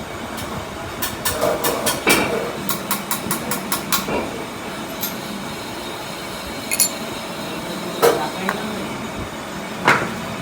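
Light metallic clicks and knocks, like tools and small parts being handled on a workbench: a quick run of clicks, then three separate louder knocks, over a steady hum.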